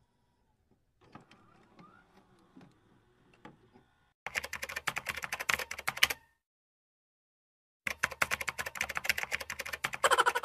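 Typing sound effect: rapid key clicks in two runs, the first starting about four seconds in and lasting about two seconds, the second starting near eight seconds.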